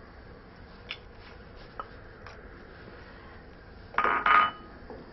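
A couple of faint clicks, then about four seconds in a short double clatter of metal kitchenware with a brief ringing note, as a utensil knocks against a cooking pot.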